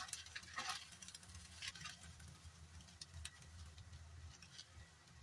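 Spatula stirring and tossing rice vermicelli in a wok: faint, irregular clicks and scrapes of the utensil against the pan.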